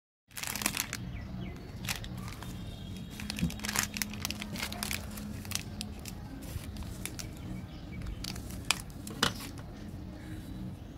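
Plastic and foil candy wrappers crinkling and crackling as they are handled, many short sharp crackles over a low steady hum.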